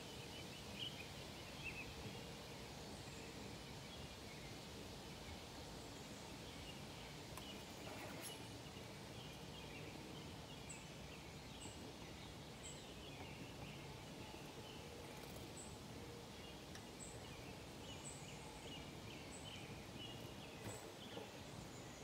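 Small songbirds chirping and twittering over a steady outdoor background hiss, with a run of short, very high peeps about once a second in the second half.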